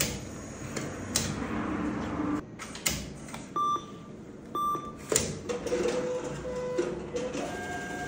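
Cash machine (ATM) in use: sharp clicks as a bank card is fed into the card slot, two short beeps from the machine a second apart around the middle, then a steady low hum with shifting held tones as it works.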